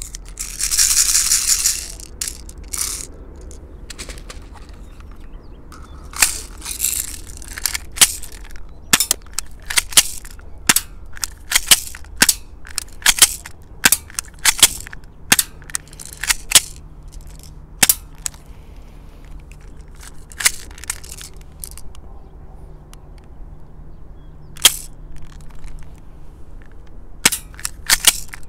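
A loud hiss lasting about a second and a half, then an airsoft Beretta M92FS pistol firing a couple of dozen sharp single shots at uneven intervals, sometimes two in quick succession.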